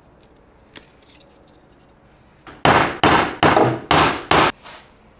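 A hammer driving wooden dowels through a stack of plywood pulley discs to align them: about six quick, sharp strikes in two seconds, starting about halfway in.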